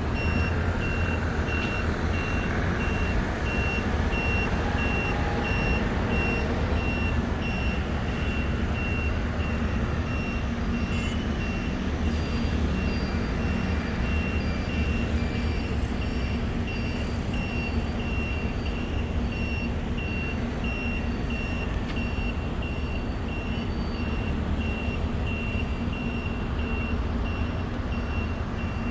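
An electronic warning beeper sounding a high, evenly repeated beep about twice a second, over a steady low rumble of idling machinery.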